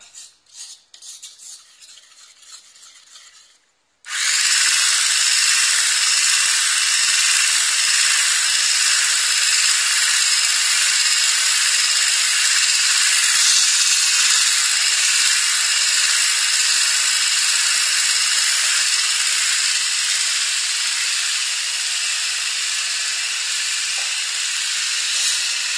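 Hand-held electric whisk running steadily in Yorkshire pudding batter of eggs, flour and milk, a loud, high whirring hiss as it beats air into the mixture. It starts suddenly about four seconds in, after a few quieter seconds of faint clicks.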